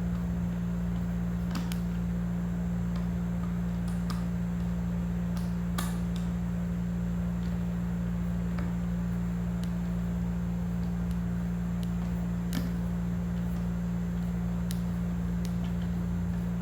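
A steady low hum runs throughout. Over it come a few scattered light clicks and taps, about seven in all, from a hand screwdriver and screws as a flat-pack board is screwed on by hand.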